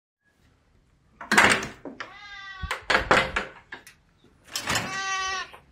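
Russian Blue cat meowing twice, each meow long and drawn out, as a hungry cat asking to be fed. Loud clatters of a door being unbolted and opened come before and between the meows, the loudest just over a second in.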